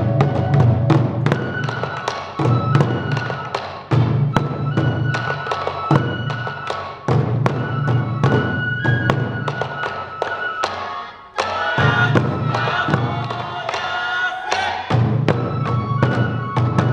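Sansa odori music: a massed group of taiko drums beating rapidly in repeating phrases with short breaks, and high bamboo flutes playing a melody over them.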